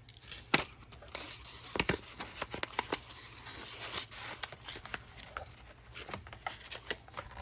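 Paper and card being handled: sheets rustling, with scattered light taps and clicks.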